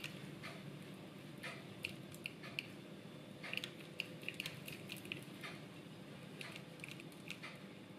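Kitchen knife scoring the skin of a boiled pork knuckle: faint, quick clicks and slicing sounds as the blade cuts the skin, coming in short clusters.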